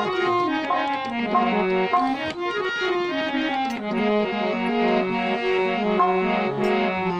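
Harmonium playing a melodic instrumental interlude in Hindustani devotional music: held reedy notes stepping up and down with no singing.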